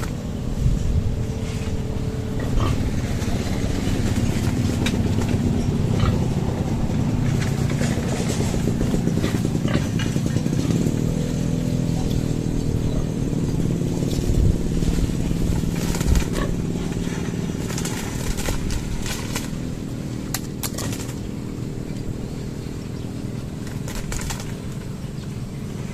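A small motorcycle engine running steadily, louder through the first part and easing off after about eighteen seconds.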